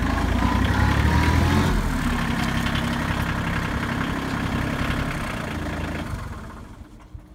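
Kioti CK2610 compact tractor's three-cylinder diesel engine running steadily as the tractor drives in a low gear, the sound dropping away sharply near the end.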